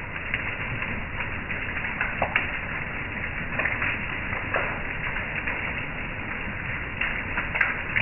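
Heavy rain falling in a steady hiss, with scattered sharper drop hits standing out now and then.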